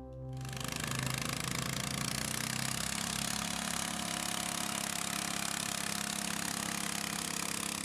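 Garden tractor engine running steadily under load as it pulls a weight-transfer sled, with a fast even pulse.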